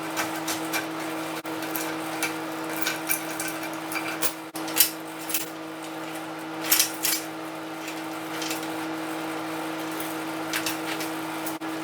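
Metal parts and tools being handled: scattered clinks and clanks, loudest about five seconds in and again in a quick pair about seven seconds in, over a steady hum.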